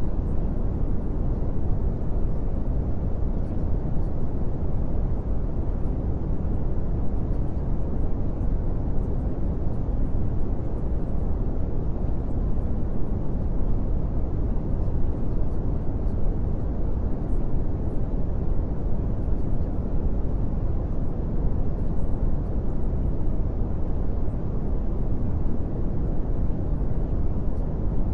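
Steady, even low rumbling noise with no pitch, rhythm or change, heaviest in the bass and thinning toward the treble, like brown noise.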